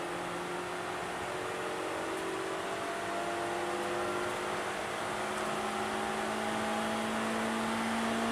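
Suzuki Swift Sport's four-cylinder engine pulling in one gear, its pitch rising slowly and steadily as the car accelerates, heard from inside the cabin over road and wind noise.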